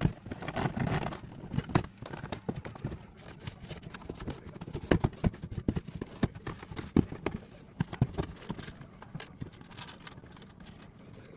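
Hard parts being handled: irregular clicks, taps and knocks, densest around the middle, with a short rustle or scrubbing about a second in.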